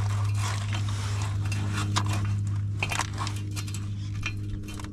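Irregular metallic clinks, taps and scrapes as exhaust pipe sections and a clamp are worked together by hand, over a steady low hum.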